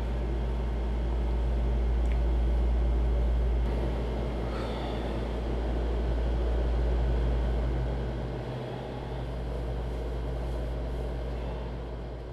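Window air conditioner running with a steady low hum.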